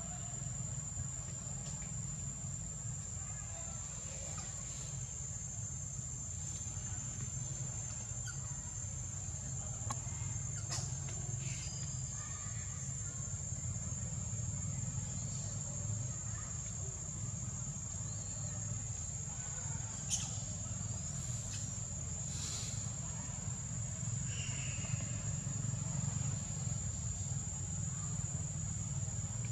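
Outdoor forest ambience: a continuous high-pitched insect drone over a steady low rumble, with a few faint clicks and snaps.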